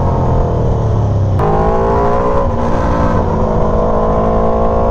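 Aprilia Tuono V4's V4 engine through an SC-Project GP exhaust, its note falling off at first, then jumping sharply up in pitch about a second and a half in and easing slowly down again.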